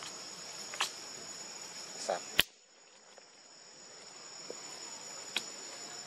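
Steady high-pitched trilling of crickets or similar insects, with a few sharp clicks. After the loudest click, about two and a half seconds in, the background drops away and slowly swells back.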